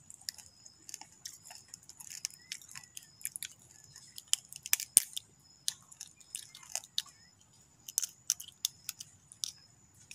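Crackling and snapping of a live freshwater crab's shell as it is pried apart by hand and its top shell pulled off. It comes as a faint, irregular run of small sharp clicks and crunches.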